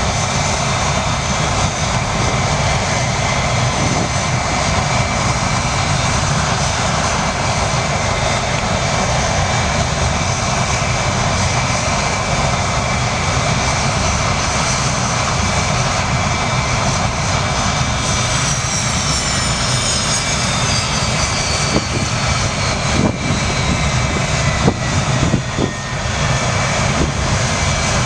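Avro Vulcan's Rolls-Royce Olympus turbojets running on a ground run: a steady loud jet roar with a high whine over it. About two-thirds of the way through, the high whine tones drop in pitch, and a few short thumps come near the end.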